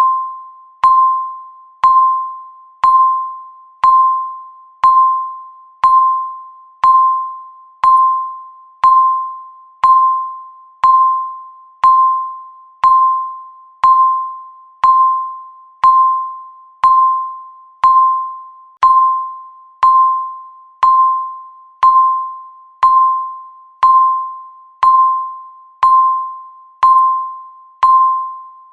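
Countdown timer beeping once a second, marking each second left. Each beep is a single mid-pitched electronic tone that starts sharply and fades away before the next.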